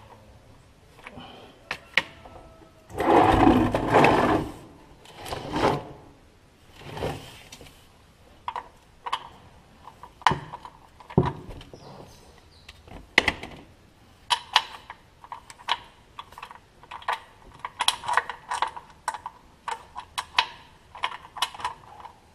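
Ratchet wrench with a 21 mm socket clicking in short quick runs while a tight oil drain plug is worked loose. A louder rushing scrape of about a second and a half comes about three seconds in, with a shorter one a couple of seconds later.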